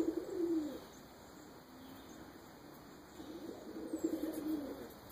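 Domestic pigeons cooing: one low coo fading out just under a second in, and another from a little past three seconds until near the end.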